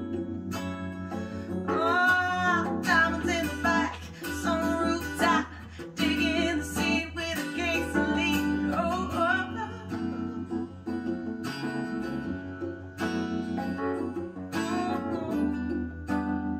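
A song with guitar and a singing voice played back through hi-fi floor-standing loudspeakers, the Silverline Sonata MKII driven by a Luxman L-590AXII amplifier from a Yamaha CD-S2100 player, picked up in the listening room.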